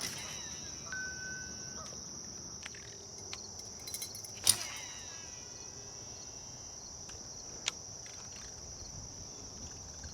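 A steady, high-pitched insect chorus, with a few sharp clicks, the loudest about four and a half seconds in.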